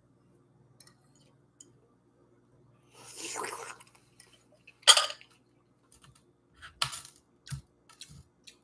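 A metal fork on a ceramic plate while eating: a scrape about three seconds in, a sharp clink about five seconds in, then a few lighter clinks and dull knocks near the end.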